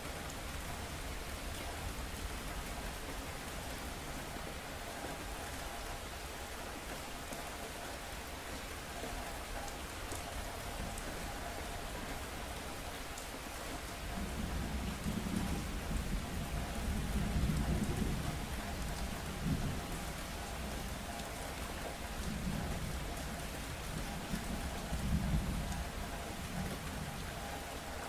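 Steady rain falling, with a low rumble of thunder that starts about halfway through, swells twice and dies down near the end.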